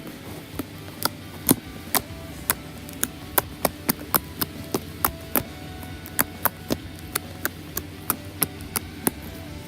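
Freshly made fluffy slime being squeezed and stretched by hand, giving sharp, irregular clicks and pops about two or three times a second, with faint music underneath.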